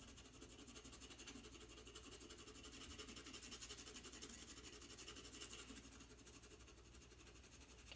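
Faint scratching of a General's white charcoal pencil on black drawing paper in rapid, short, even strokes, several a second, as a highlight is built up.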